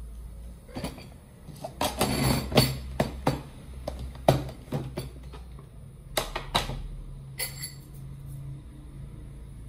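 Scattered knocks and clinks of kitchenware being handled, busiest a couple of seconds in, over a low steady hum.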